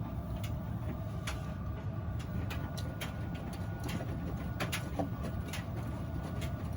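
Miele front-loading washing machine in its wash cycle, the drum tumbling a water-filled load of laundry: a steady low rumble of sloshing water with irregular light clicks.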